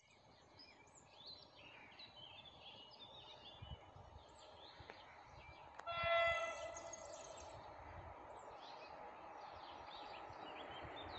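Train horn sounding one blast, about a second long, about six seconds in, over birds chirping. Afterwards a steady low rumble grows slowly louder as a train approaches.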